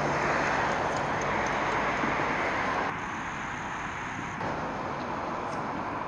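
Steady outdoor background noise, an even hiss with no distinct events, dropping somewhat in level about three seconds in.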